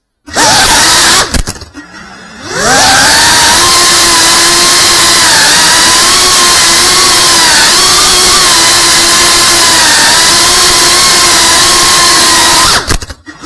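FPV drone's motors and propellers whining at close range, their pitch wavering with throttle. The sound drops away briefly about two seconds in and spins back up with a rising pitch, then drops away again near the end.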